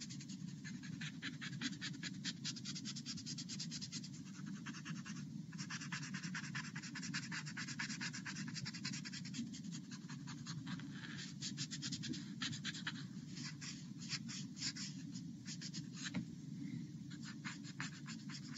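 A Derwent pencil-shaped tool rubbing graphite shading on sketchbook paper in small, quick circles to blend it: a fast, continuous fine scratching with a brief pause about five seconds in.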